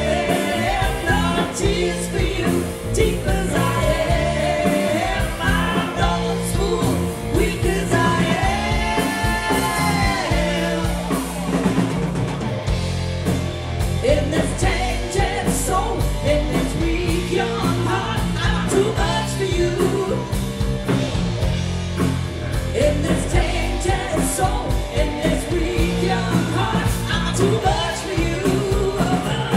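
Live rock band playing: a woman sings the lead over electric guitar and drums, with a second woman singing backing vocals. About eight seconds in the lead voice holds one long note that swells up and falls away.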